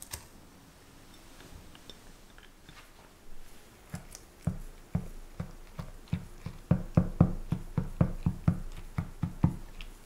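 Silicone spatula stirring warm custard sauce in a mixing bowl, knocking softly against the bowl with each stroke as soaked gelatin is dissolved into it. The knocks start about four seconds in at about two a second, then quicken to three or four a second and grow louder before stopping near the end.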